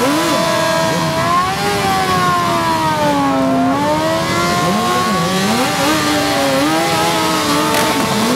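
Several motorcycle engines, dirt bikes and sport bikes, revving at the same time, their pitches rising and falling over one another.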